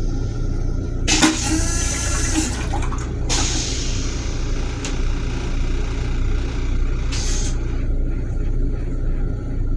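Toilet in an M7 railcar restroom flushing: a click about a second in, then rushing water and air that comes and goes over several seconds, over the car's steady low rumble.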